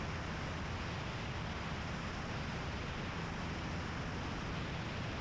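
Steady rush of airflow over a camera mounted outside a light aircraft in flight, with a low engine and propeller drone underneath.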